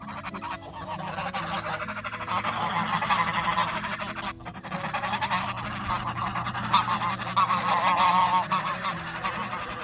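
Several geese honking and calling over one another in a continuous, excited chorus, loudest about seven to eight seconds in.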